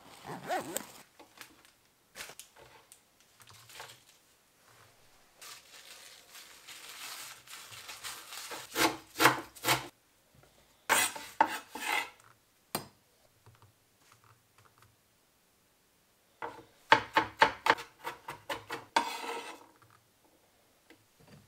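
A kitchen knife chopping on a wooden chopping board in quick runs of strokes, with the blade scraping across the board between runs as wild garlic leaves and capers are chopped and gathered.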